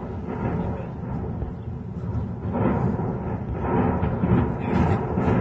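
Low, continuous rumbling of a large explosion and fire, swelling and pulsing with further blasts at the site.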